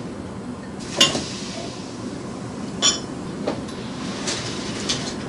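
Glass bottles and glasses clinking on a table: two sharp ringing clinks about a second apart and two seconds apart, then a few lighter knocks.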